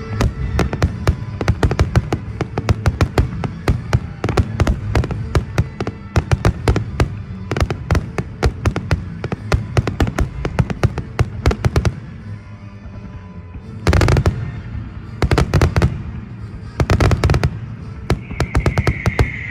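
Fireworks display set off to music: a long run of rapid crackling bangs, a short lull, then three heavy booming bursts near the end.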